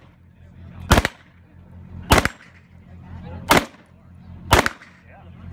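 Kalashnikov-pattern rifle fired in slow single shots: four sharp cracks roughly a second apart, each with a short echo.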